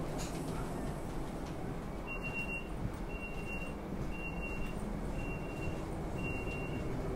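Warning signal inside an ESh2 Eurasia (Stadler KISS) double-deck electric train carriage: five high, even beeps about a second apart, starting about two seconds in, over the carriage's steady low rumble while it stands at the platform.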